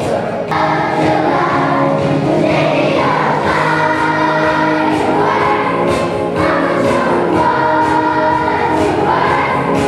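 Children's choir singing a song in unison with musical accompaniment, steady and continuous.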